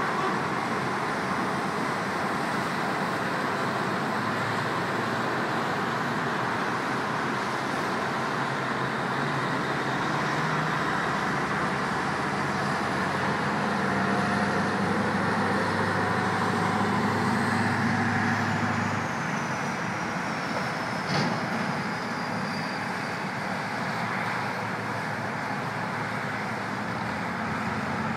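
Steady noise of dense road traffic on multi-lane city highways, with the low drone of vehicle engines underneath. In the second half a thin high whine slides slowly down in pitch, and a single sharp click sounds about two-thirds of the way through.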